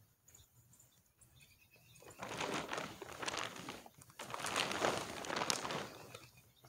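A fabric car cover rustling and crinkling as it is dragged back off a car, in two long stretches starting about two seconds in.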